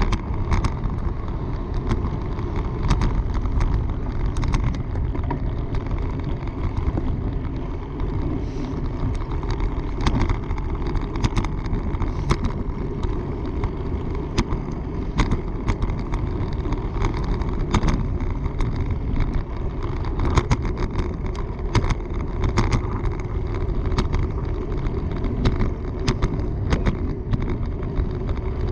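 Wind rushing over the microphone of a bicycle moving at speed, a steady low rumble, with frequent sharp ticks and rattles from the bike over the trail surface.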